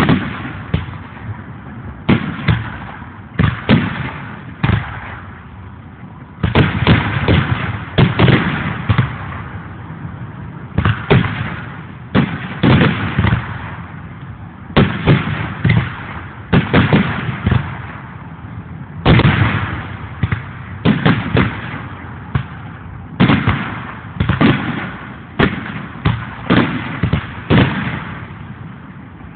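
Aerial firework shells bursting in a long run of booms, many in quick clusters of two or three, with short lulls between volleys.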